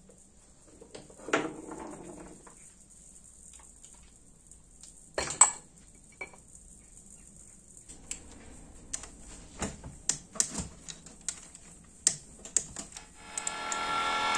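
Metal engine parts and hand tools being handled: sparse clinks, clicks and light knocks, with a sharper clank about five seconds in and quicker clicking in the second half. Music fades in near the end.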